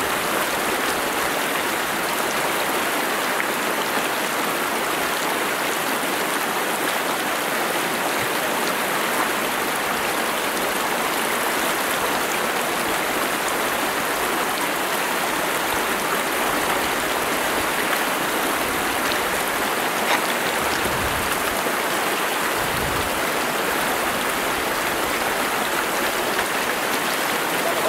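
Fast stream water tumbling over rocks, a steady even rush of running water.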